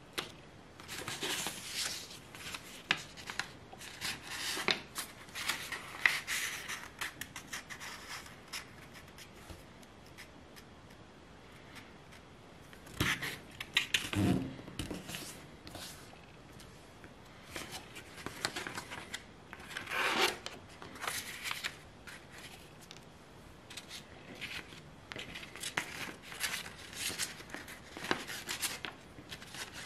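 A square sheet of paper being folded by hand: intermittent rustling and scraping as fingers press and run along the creases, with a louder spell of crinkling handling about halfway through.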